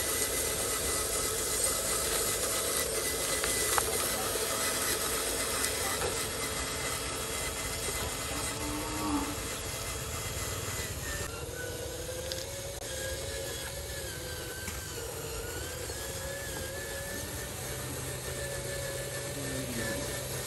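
Electric motor and gearbox of a radio-controlled model dump truck whining as it drives, the pitch wavering up and down with the throttle, over steady outdoor background noise.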